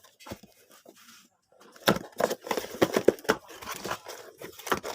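Irregular crackling and crunching, sparse at first and then dense from about two seconds in, like material being torn or crushed; no saw motor is running.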